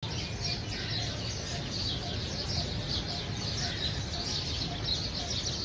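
Many small birds chirping continuously in quick, overlapping notes over a low, steady background rumble.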